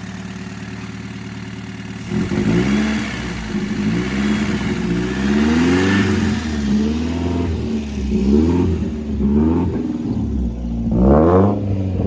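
BMW E36 318is four-cylinder engine idling, then blipped repeatedly from about two seconds in, the pitch rising and falling with each rev, through a freshly adapted exhaust. Two sharper revs come near the end.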